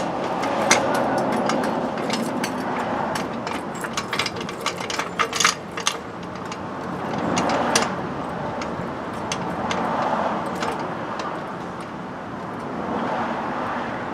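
Hand tools and metal parts clicking and clinking in scattered taps during work on a Jeep XJ's front suspension, while a whooshing noise swells and fades about three times.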